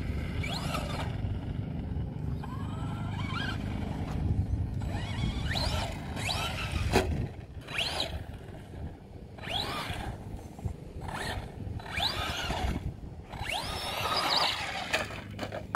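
Arrma Big Rock BLX RC truck's brushless electric motor whining up in pitch in short bursts, again and again roughly every one to two seconds, as the throttle is punched over and over, over a steady low rumble.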